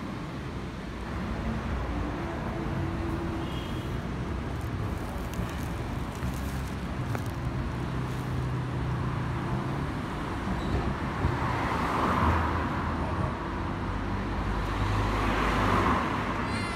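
Steady street traffic noise, with vehicles swelling past twice in the second half.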